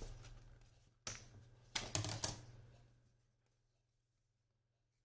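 Scissors cutting paper: paper rustling, then a quick cluster of three sharp snips about two seconds in.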